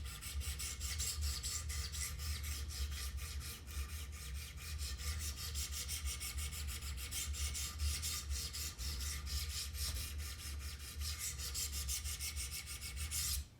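A Wicked Edge guided sharpener's 200-grit diamond stones are stroked quickly and evenly against a hard CPM-M4 steel knife edge, about four to five strokes a second. The strokes stop just before the end.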